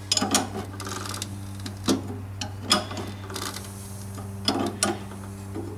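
Scattered metallic clicks and knocks, about ten spread unevenly, over a steady low hum, as the air-cooled flat-four engine of a 1973 VW Super Beetle is turned over by hand with a wrench on the crankshaft pulley nut to find top dead centre for a valve adjustment.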